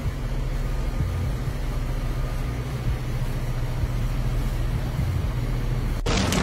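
Steady low machine hum, like a motor or engine running nearby. About six seconds in it cuts suddenly to a louder crackling noise.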